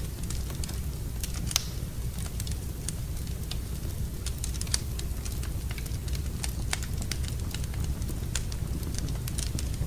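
Wood fire in a fireplace crackling, with irregular snaps and a couple of louder pops over a steady low rumble.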